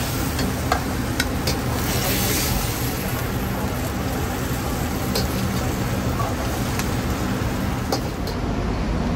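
Steady roar of a gas wok burner under a wok of simmering broth, with a few sharp clicks of a metal ladle against the wok.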